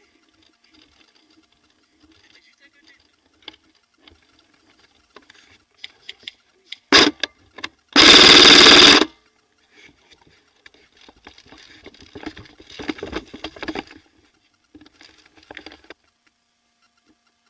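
Airsoft electric gun (AEG) firing: a few single shots about seven seconds in, then one loud full-auto burst of about a second, among gear rustle and footsteps.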